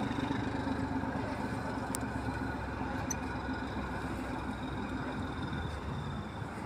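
Class 14 diesel-hydraulic locomotive's Paxman engine running steadily with a constant low hum, growing slightly quieter toward the end.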